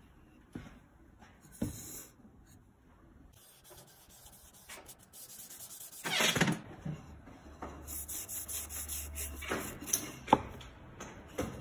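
A fabric pad rubbing shellac onto a wooden joint. The first half is faint handling; from about halfway through come louder rubbing strokes, with a few sharper ones near the end.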